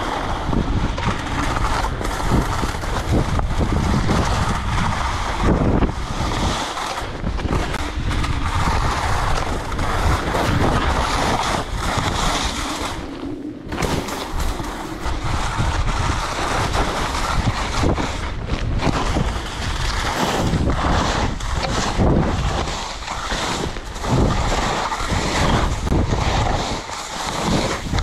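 Wind buffeting the microphone over the hiss and scrape of skis sliding on spring snow during a fast downhill run, rising and falling in gusts, with a brief lull about halfway through.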